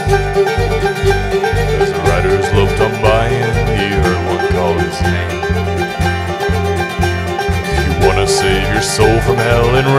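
Live bluegrass band playing an instrumental passage: banjo and acoustic guitar with a fiddle playing sliding, wavering lines, over an upright bass thumping out about two notes a second.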